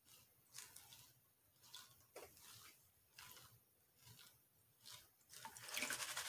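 Water sloshing in a plastic gold pan as it is dipped and swirled in a tub of water to pan paydirt, with soft swishes about once a second. Near the end the splashing grows louder as the pan is tipped and water pours over its rim.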